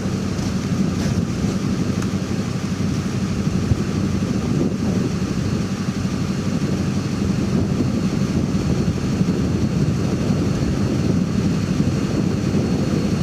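Steady low rumble of a vehicle running, with road and engine noise that holds even throughout.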